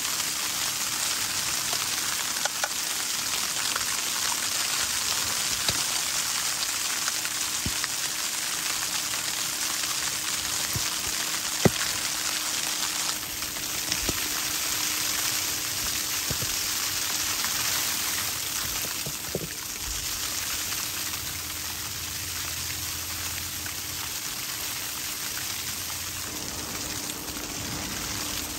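Steady hiss of wind blowing through the forest and over the tent fabric, easing slightly about halfway through. A few light clicks and knocks of a spoon stirring in a mug sound over it.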